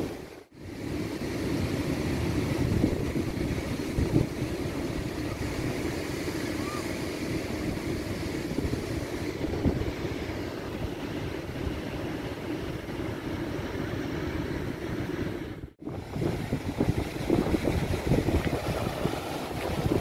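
Sea surf washing onto a sandy beach, largely covered by wind buffeting the microphone. The sound drops out briefly about half a second in and again about three-quarters of the way through.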